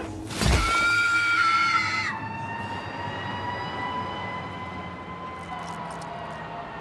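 Film soundtrack: a sudden loud hit about half a second in, followed by a long steady high-pitched tone that steps down slightly in pitch and level about two seconds in and then holds.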